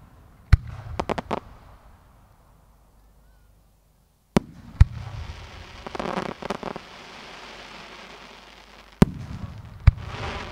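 Aerial firework shells bursting overhead: a sharp bang about half a second in and a quick string of cracks just after, two more bangs a little before the middle followed by a few seconds of crackling hiss, then two more bangs near the end with more crackle.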